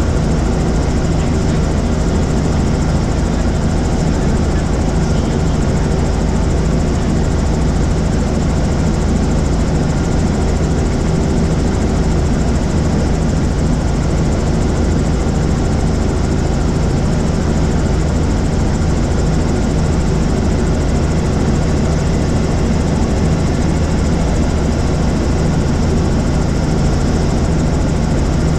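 Helicopter in flight: its engine and rotors make a loud, steady drone that does not change.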